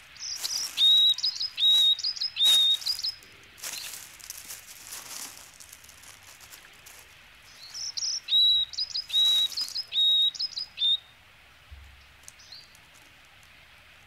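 A small songbird sings two runs of repeated paired notes, a short high chirp then a brief held whistle, about three to four pairs per run. The first run comes near the start and the second about eight seconds in. A few short crunches of dry leaves come in the first four seconds.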